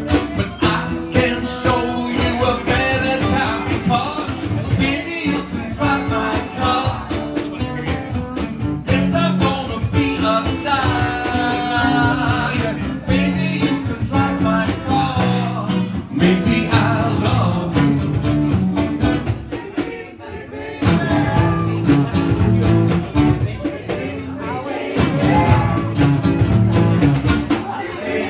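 Band music with electric guitar and a singing voice, dipping briefly about two-thirds of the way through.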